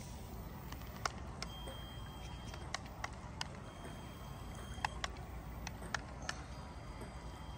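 Small electric RC toy boat running on a swimming pool: a faint high whine that comes and goes three times for about a second each, over a steady low rumble, with scattered irregular sharp clicks.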